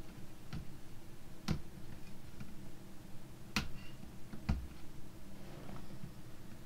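Sharp plastic clicks and snaps from the internals of an opened laptop being unclipped and pried loose by hand, four in all, the second and third the loudest, over a low steady hum.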